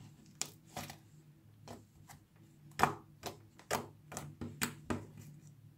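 Pink clay slime being squeezed and pressed between the fingers, giving an irregular series of sharp clicking pops as air pockets burst, the loudest a little before halfway.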